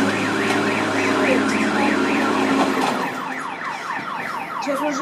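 Car alarm wailing, its pitch rising and falling about three times a second, switching about three seconds in to quicker falling sweeps. It is set off by a wheel loader ramming parked cars, whose engine runs underneath with a steady hum.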